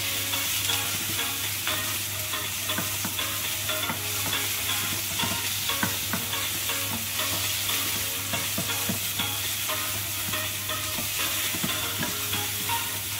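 Chicken pieces frying in a pan, stirred with a wooden spoon: a steady sizzle broken by irregular light scrapes and taps of the spoon, over a low steady hum.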